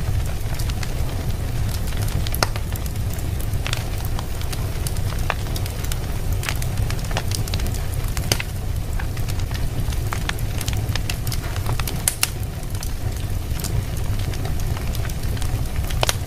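Wood fire burning in a fireplace, crackling and popping in many sharp, irregular snaps over a steady low rumble.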